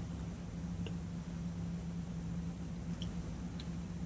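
Steady low hum in a cruise ship cabin, with a few faint small clicks.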